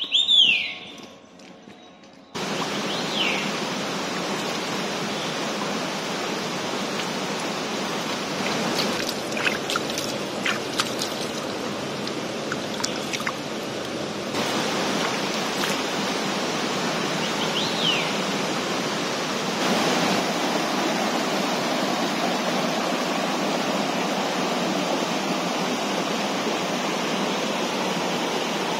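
Steady rushing of a mountain stream over rocks, starting about two seconds in. A few small splashes come in the middle. A bird gives a short falling whistle at the very start and twice more over the water.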